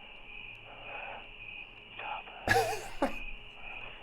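Crickets chirping steadily in the night air, picked up by a doorbell camera's microphone. A brief burst of a person's voice breaks in about two and a half seconds in, with a shorter one half a second later.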